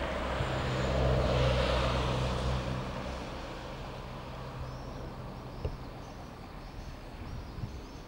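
A motor vehicle passing: its engine hum and road noise swell over the first two or three seconds, then fade away.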